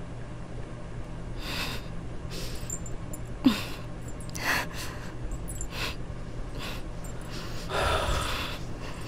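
A woman's agitated breathing: a series of short, sharp sniffs and gasps, one with a brief catch of the voice about three and a half seconds in. A duller, heavier sound comes about eight seconds in.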